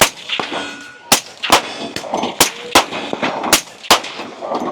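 Firearm gunshots, about seven in all: one at the start, then three quick pairs about a second apart, each shot with a short echo.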